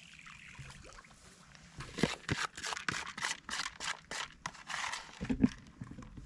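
Footsteps crunching on frozen ground, quick steps for about three seconds, then a duller thump near the end.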